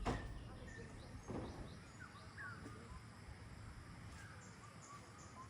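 Birds chirping now and then over a faint steady outdoor background hiss, with a sharp click right at the start and a brief rustle about a second in.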